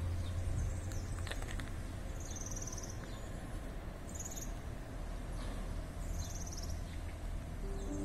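Outdoor ambience: a short, high, buzzy animal call repeats three times, about a second and a half apart, over a low steady hum.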